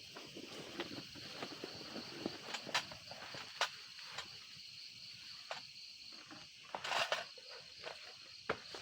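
Steady high-pitched chirring of insects such as crickets, with scattered clicks and knocks of camp handling and a louder rustle about seven seconds in.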